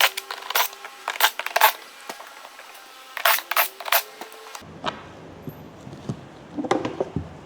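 Ratchet wrench clicking in quick strokes, about three a second, as the 10 mm bolts on the belt-drive cover are undone, with a faint rising whir twice; a few knocks of tools or bolts follow near the end.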